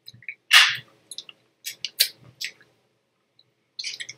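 Small plastic candy wrapper crinkling in short crackles as it is handled, the loudest about half a second in, with a pause before more rustling near the end.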